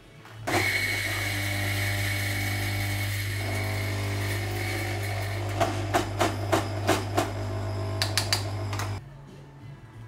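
Electric coffee grinder running steadily with a low hum. It starts about half a second in and switches off near the end. Midway comes a run of sharp taps at the grinder's spout, knocking the grounds loose into the metal dosing cup.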